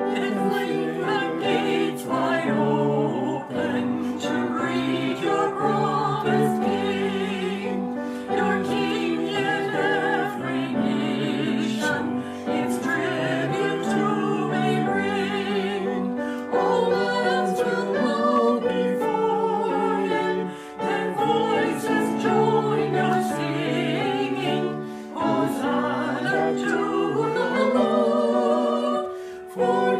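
A hymn sung together by a few men's and women's voices, the held notes wavering with vibrato, with short breaks between lines.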